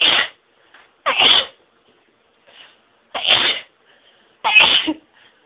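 A person sneezing over and over in a sneezing fit: four loud sneezes in quick succession, one or two seconds apart.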